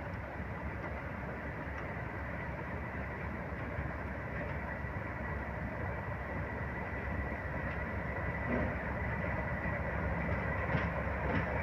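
English Electric Class 37 diesel locomotive approaching slowly, its V12 diesel engine running as a steady low rumble with a thin high whistle over it. It grows gradually louder as it draws near.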